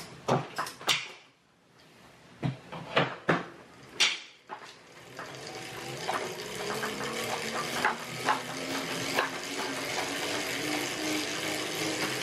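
Sharp clicks and knocks of cycling shoes and cleats as the rider clips into the pedals. About five seconds in, the Tacx Neo smart trainer and chain start a steady whir, with a hum that slowly rises in pitch as pedalling picks up.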